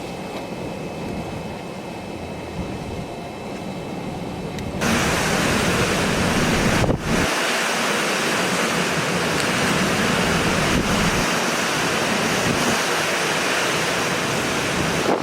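Hurricane-force wind blowing hard and buffeting the microphone. About five seconds in it jumps suddenly louder and hissier, with a brief dip about two seconds later.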